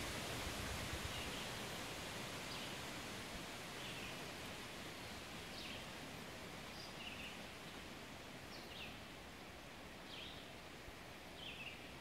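Wind rustling through the leaves of a forest canopy, a steady hiss that slowly grows quieter. A small bird gives short high chirps about once a second.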